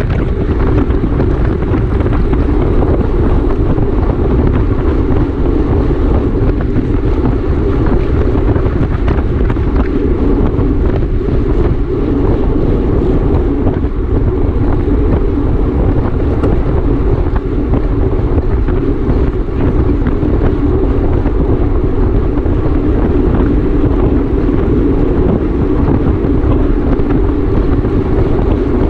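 Wind buffeting the microphone of a camera riding on a racing bicycle at race speed: a loud, steady low-pitched rush with no breaks.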